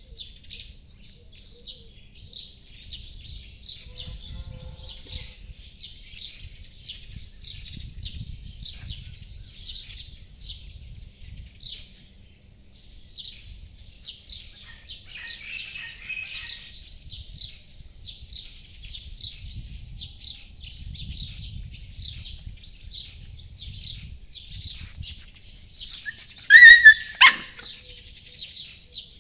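Small birds chirping steadily in the background, and about three seconds before the end a puppy gives one loud, short yelp that falls in pitch.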